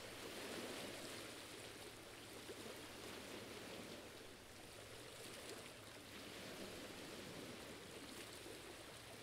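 Faint, steady background hiss with no distinct events.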